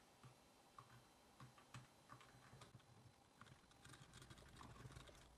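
Faint, scattered small clicks and light taps of a screw and plastic parts being handled while the servo steering arm of a mini RC car is fitted.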